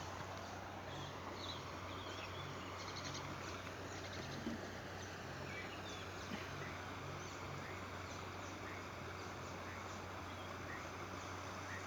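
Quiet outdoor ambience with scattered short, faint bird chirps over a steady low hum.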